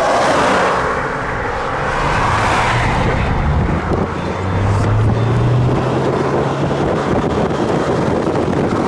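Cars going by on a road: tyre and engine noise rising and falling as each one passes, with wind on the microphone. A low engine hum comes through as one vehicle goes by past the middle.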